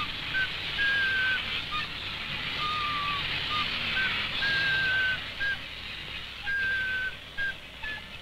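A high, pure-toned pipe playing a simple tune of short held notes, each sagging slightly in pitch, with quick little notes between them, over a steady hiss.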